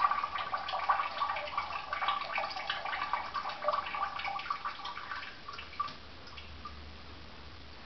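A cat urinating through the centre hole of a LitterKwitter amber-stage toilet-training ring into the toilet bowl: a trickle of dripping and splashing that thins out and stops about six seconds in.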